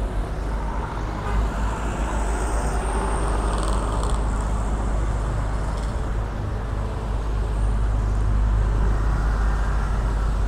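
Road traffic: cars and motorcycles passing slowly close by, a steady mix of engine and tyre noise over a deep rumble.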